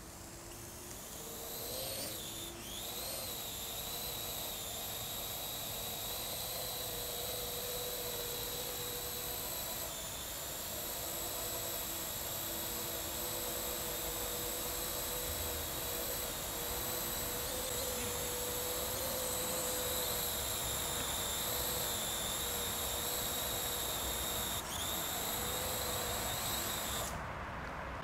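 Parrot AR.Drone 2.0 quadcopter's electric rotors spinning up to a high whine at takeoff, then holding a steady whine in flight with small changes in pitch. The whine stops suddenly shortly before the end.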